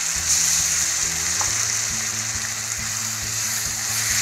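Onion-and-spice masala with freshly added green ground paste sizzling steadily in hot oil in a kadhai. A spatula stirs it near the end.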